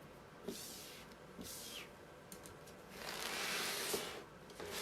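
Hands rubbing and smoothing a plastic adhesive chalk transfer onto a board: two short rubbing strokes, then a longer one about three seconds in.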